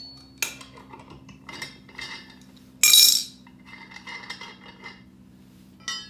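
Steel tire bar of a manual Harbor Freight mini tire changer clanking and scraping against the changer's center post and the aluminum rim as the second bead of an ATV tire is worked on. A loud ringing clank comes about three seconds in, with lighter metal clinks shortly after the start and near the end and scraping between.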